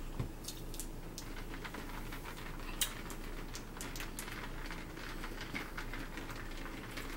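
Eating at the table: irregular small crackling clicks of chewing and handling food, with one sharper click about three seconds in.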